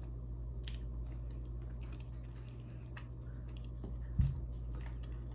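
Closed-mouth chewing of soft mashed potatoes and roast beef: faint wet mouth clicks and smacks, with a brief hummed "mm" about four seconds in, over a steady low background hum.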